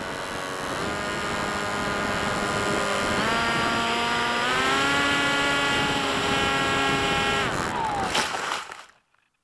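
Electric motor and propeller of a Skyhunter RC plane, heard from its onboard camera over a rush of air. The whine steps up in pitch twice as the throttle is raised, stops about 7.5 s in, and a falling whine follows before the sound cuts off near the end.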